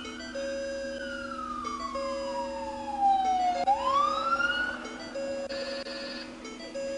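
Police siren wailing: one slow falling sweep, then a quick rise about halfway through. Underneath, a steady electronic tone repeats in long beeps about every second and a half.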